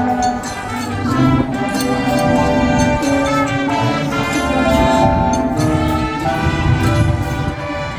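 Marching band brass playing held chords and a moving melody, with low drums and bass underneath.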